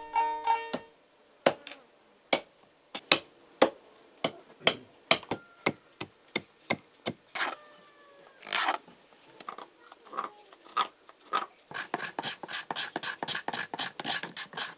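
Hand carving of a wooden spoon: a blade cuts sharply into the wood, one or two strokes a second at first, then a fast run of about five strokes a second near the end. A plucked-string folk tune fades out in the first second.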